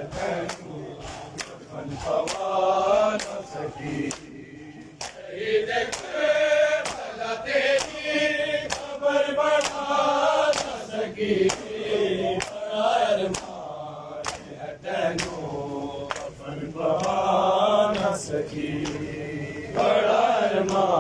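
Men's voices chanting a noha lament together in phrases. Sharp hand slaps of matam chest-beating keep a steady beat about twice a second.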